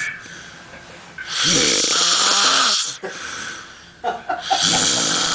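A man snoring heavily: two loud, rasping snores on the in-breath, one about a second in and one near the end, each about a second and a half long, with a quieter breath between them.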